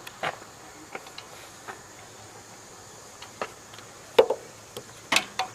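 Scattered light clicks and knocks of hands and tools working the mounting bolt into a car alternator bracket, with a couple of sharper knocks about four and five seconds in.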